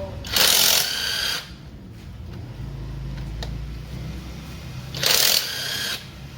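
Handheld power tool, such as an impact wrench, spinning in two short bursts of about a second each, near the start and about five seconds in, while bolts are undone during the engine teardown. A low hum lies between the bursts.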